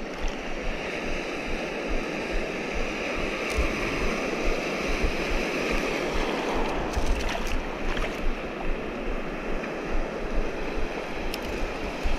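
Sea surf washing along the shore, with wind buffeting the microphone. A few faint clicks come through, around the middle and near the end.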